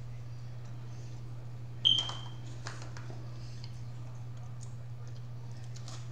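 Eating at the table with crab legs: faint scattered clicks of shells being handled. About two seconds in comes one sharp clink that rings briefly. A steady low hum runs underneath.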